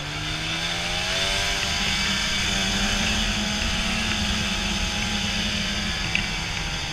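Arctic Cat Lynx 2000 LT snowmobile engine running under way, climbing in pitch over the first two seconds as the sled speeds up, holding steady, then easing off about six seconds in, with a steady hiss over it.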